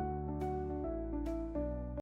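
Background music: sustained chords that change every second or so, with a light percussion hit about twice.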